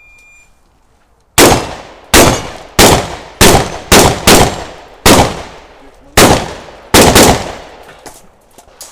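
An electronic shot timer beeps to start a stage, and a little over a second later a shotgun fires about ten shots in quick succession, roughly half a second to a second apart. Fainter knocks follow near the end.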